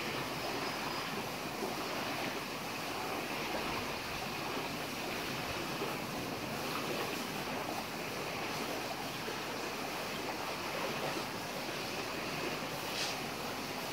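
Steady wash of small waves on a sandy shore, mixed with wind on the microphone.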